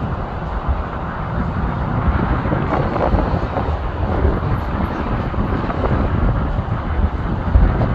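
Business jet climbing away after takeoff: a steady, low jet-engine rumble, with wind buffeting the microphone.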